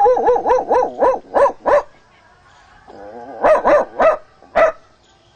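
A man imitating a dog barking with his voice: a quick run of about seven yapping barks, a pause of about a second, then a low whine leading into four more barks.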